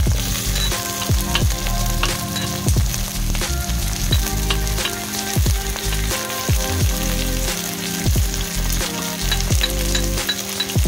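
Chopped onions sizzling in hot oil in a kadhai, a steady frying hiss, as pieces of tomato drop in at the start.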